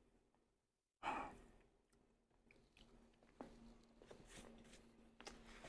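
A single breathy sigh about a second in, fading quickly, followed by faint clicks and mouth noises over a steady low hum.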